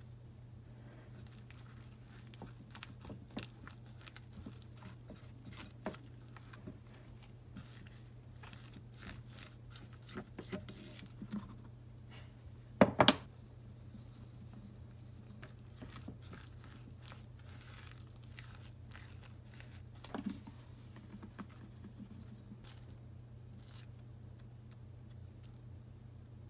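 A silicone spatula stirs and scrapes a thick potato-starch dough in a glass bowl, then hands knead it: soft squishing, scraping and small taps. About 13 seconds in there is a sharp double knock, the loudest sound, and a smaller knock comes about a second after the 20-second mark. A steady low hum runs underneath.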